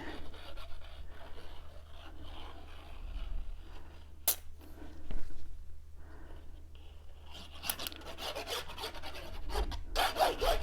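Cardstock pieces being handled and pressed together by hand, rubbing and rustling, with a sharp click about four seconds in and denser crackling paper handling near the end.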